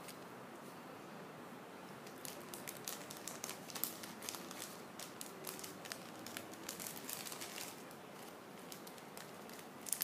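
Thin clear plastic bag crinkling as it is handled, busiest from about two seconds in until nearly eight, with another short crinkle near the end.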